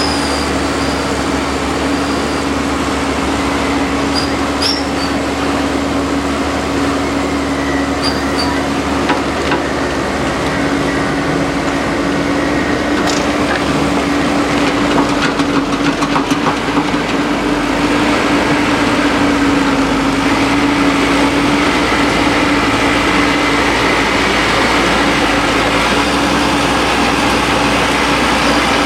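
Heavy diesel engine running steadily with a constant droning tone, under load during a tow out of mud. A few faint clicks are heard over it.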